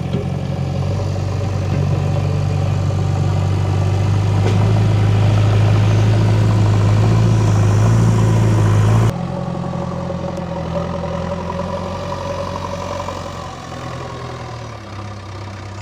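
JCB 3DX backhoe loader's diesel engine running steadily with a low drone. About nine seconds in, the sound drops suddenly to a quieter level and carries on running.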